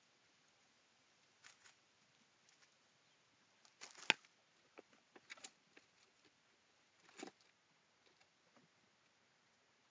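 Gray squirrel scrabbling close to the microphone: faint scattered rustles and taps in dry leaves, with a sharper knock about four seconds in as it comes right up against the lens.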